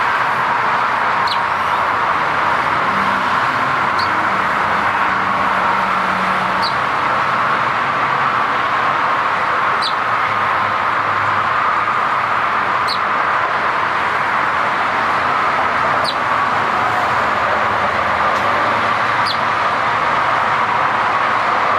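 Sparrow giving short high chirps, one about every three seconds, over a steady loud background noise.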